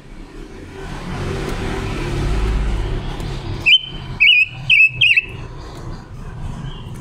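A female silver-eared mesia gives four short, loud whistled notes, each with a quick warble, a little past the middle. Before them a passing vehicle's rumble swells and fades.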